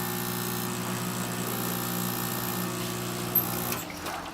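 Lelit PL62T espresso machine's vibration pump buzzing steadily while a shot brews through the E61 group head, then cutting off a little before the end.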